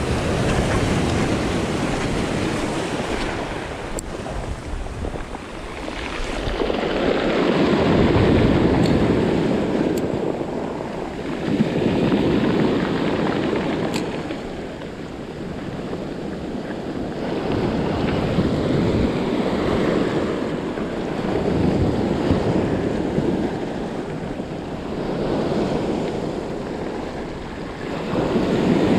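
Sea surf breaking and washing over a pebble and rock shoreline. The rush of the waves swells and falls every three to four seconds.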